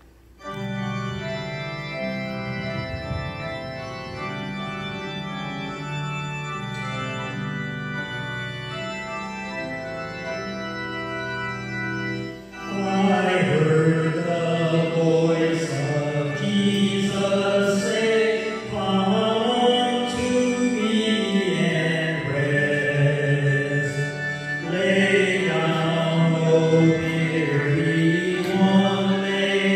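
Church organ playing sustained chords. About twelve seconds in, a male cantor begins singing a hymn over the organ.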